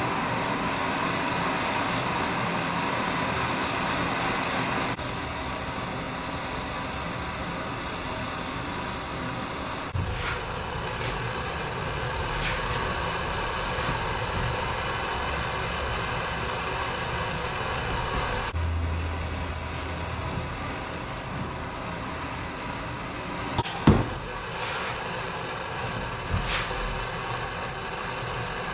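Torch flame burning with a steady hiss as it heats the end of a knife's rebar tang for burning in a wooden handle. A few short knocks, the loudest about 24 seconds in.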